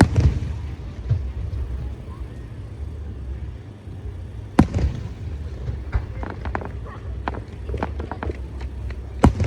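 Fireworks show: aerial shells bursting with a sharp bang at the start, another about halfway through and a third near the end, with a run of smaller crackling pops in between, over a low rumble.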